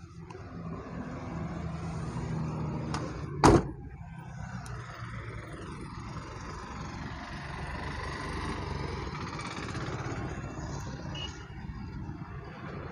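A car door slamming shut once, loud and sharp, about three and a half seconds in, most likely the Mahindra Scorpio's door as the cameraman gets out. Around it, a steady rumble of outdoor vehicle and background noise.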